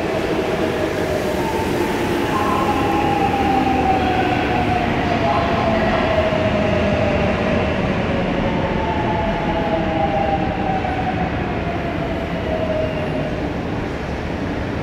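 Korail Class 351000 electric commuter train arriving at an underground platform and braking to a stop, heard as a steady rumble and rush. A whine falls in pitch twice as the train slows.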